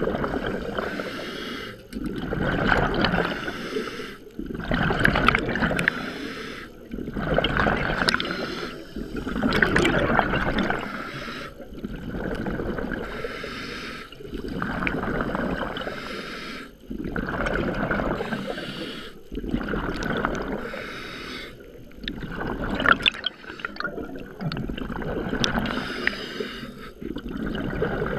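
A scuba diver breathing through a regulator underwater: each breath draws in with a hiss, then the exhaled bubbles gurgle out. The cycle repeats steadily about every two to three seconds.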